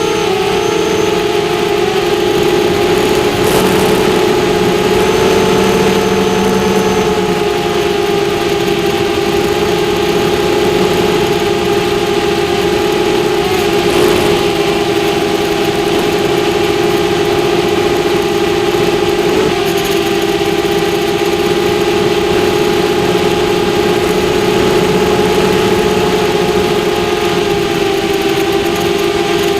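Quadcopter drone's propellers humming steadily, several close tones from the rotors with small wobbles in pitch as the motors adjust speed.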